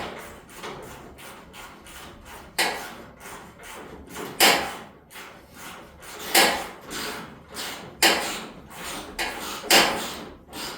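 Hand tools working a fender bolt on an old pickup by hand. Loud metallic knocks come about every two seconds, five in all, with small clicks between them.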